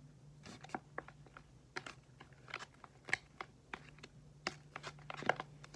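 A pen stirring clear glue and glitter in a container, making irregular sticky clicks and taps.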